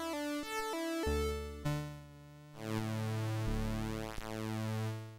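Commodore 64 SID-chip synthesizer music in stereo: quick stepped melody notes over a bass line, then long held notes that fade away near the end as the piece finishes.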